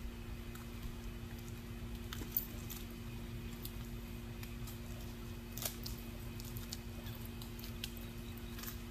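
Faint scattered metallic clicks and clinks of tree-climbing gear as a hunter climbs a pine trunk, the sharpest about two seconds in, over a steady low hum.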